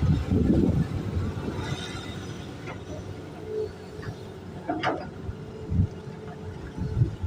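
Hitachi excavator running as it digs in piled soil: a steady engine hum with a few short knocks and clanks, the loudest about five seconds in.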